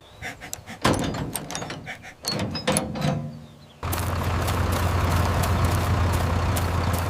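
Combine harvester machinery clunking and clicking, then about four seconds in an engine starts running steadily with a low hum.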